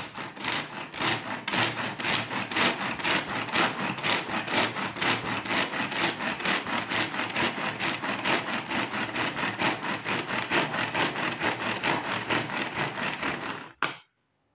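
Hand-pull string vegetable chopper being pulled over and over, about three pulls a second, its blades whirring and chopping onion inside the plastic bowl. The pulling stops abruptly near the end.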